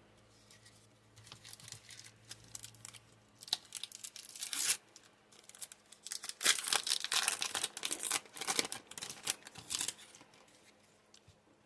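Foil booster-pack wrapper of Yu-Gi-Oh trading cards being torn open and crinkled, in two spells of rustling and crackling with the sharpest rip a little before the middle.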